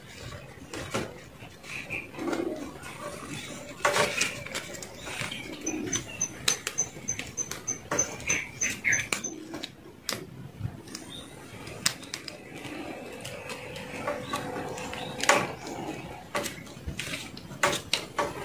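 Scattered clicks and taps of a small screwdriver and a plastic male plug handled by gloved hands while a wire is fastened to the plug's terminals.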